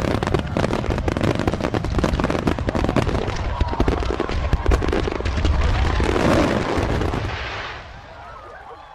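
A massed fireworks barrage: many shells bursting in rapid succession, a dense, irregular crackle of overlapping bangs and deep booms that dies away about eight seconds in.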